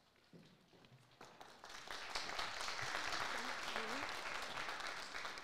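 Audience applauding. The clapping builds up over the first couple of seconds, holds, then tapers off near the end.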